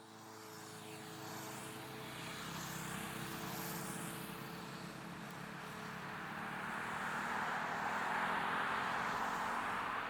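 Steam locomotive at a station, with a steady hiss of escaping steam that swells louder over the second half, and faint steady tones that fade out about halfway.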